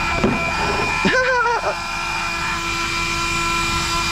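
Small electric cooling fans on an RC speed-run car running with a steady high whine while the electronics cool after a full-throttle run. About a second in there is a brief wavering hum like a voice.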